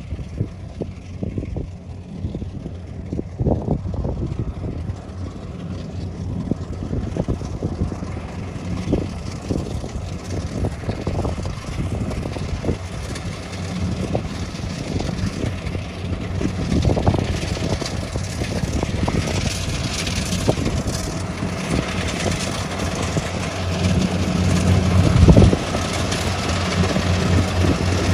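Tracked combine harvester running as it cuts and threshes rice, a steady engine hum with a busy rattle of the machinery, growing louder near the end as it comes closer. One sharp knock stands out near the end.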